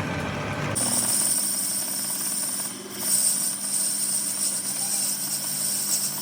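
Workshop machinery running steadily. Less than a second in, the sound changes abruptly from a low hum to a steady high hiss and whine.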